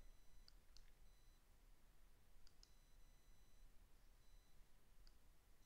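Near silence: quiet room tone with a few faint, short clicks and a faint, intermittent high electronic whine.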